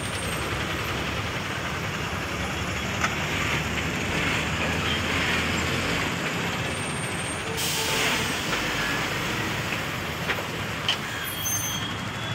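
Steady road traffic noise from passing buses, trucks and other vehicles, with a brief hiss about two-thirds of the way in.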